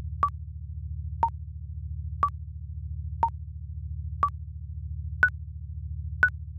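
Countdown-timer beeps: seven short electronic tones, one each second, alternating between two pitches and stepping higher for the last three, over a steady low pulsing synth drone.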